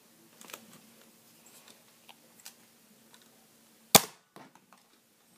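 A Nerf Elite Triad blaster firing, one sharp snap about four seconds in, with a few faint handling clicks before and after it.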